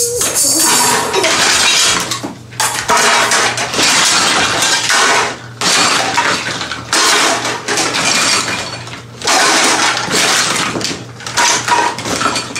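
Repeated bursts of crackling, rustling noise, about a second each with short gaps, as litter is picked up and dropped into a pop-up fabric hamper.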